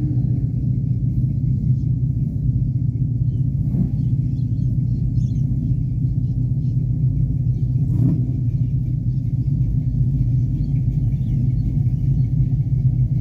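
Steady low rumble of a car heard from inside its cabin as it idles and creeps forward in a queue.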